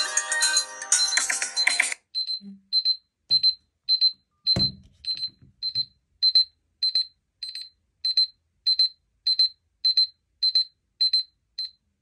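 Samsung Galaxy S Plus phone alarm beeping: short, high electronic beeps at an even pace of almost two a second. For the first two seconds a musical phone ringtone plays over the beeps, then stops. A single knock comes about four and a half seconds in.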